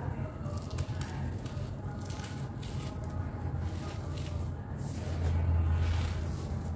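Handfuls of dry sand-cement and soil mix crumbled and poured from the hands, the grains rustling and crackling as they fall onto the pile. A low steady hum runs underneath and grows louder from about five seconds in.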